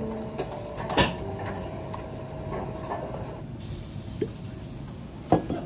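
Restaurant room tone at a grill counter with a few sharp knocks or clinks: one about a second in, a small tick later, and a louder knock near the end.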